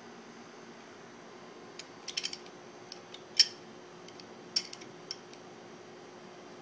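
Small metallic clicks and clinks of a pistol's slide, barrel and recoil spring being handled and fitted back together during reassembly: a few clicks about two seconds in, a sharper, louder click at about three and a half seconds and another a second later, over a faint steady hum.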